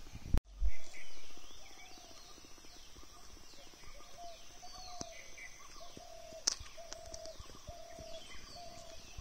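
Birds calling outdoors: one repeats a short, even note at a steady pace while others give quick falling chirps, over a thin, steady high-pitched whine. A sharp click and a loud thump come in the first second.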